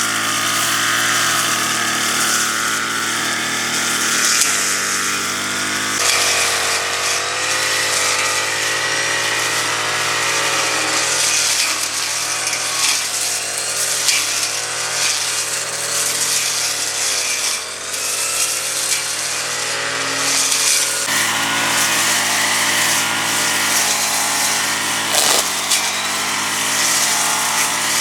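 A small engine running, its pitch wavering slightly up and down, with two abrupt jumps in the sound.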